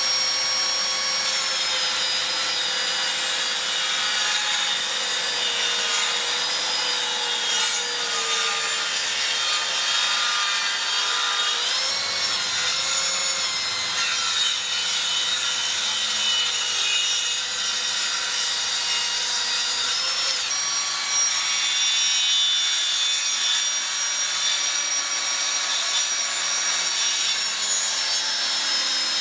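Cordless plunge track saws, a Metabo and a HiKOKI 36 V, running on a guide rail while bevel-cutting framing timber: a steady motor and blade whine over the rasp of the cut. The pitch sags and wobbles briefly about twelve seconds in, and the whine changes to a different tone about twenty seconds in.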